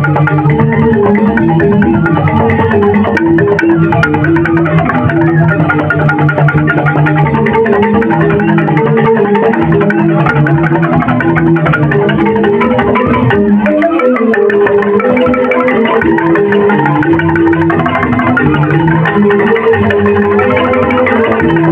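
Balinese joged bumbung gamelan: bamboo xylophones playing fast, dense interlocking melodic patterns. The low notes drop out for a moment a little past the middle, then come back in.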